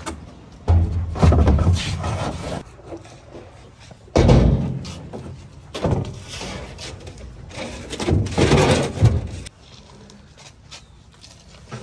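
Hollow thuds, knocks and scraping as empty plastic drums are tipped and rolled and old tyres are dropped onto a stack, in four or five heavy bouts with quieter gaps between them.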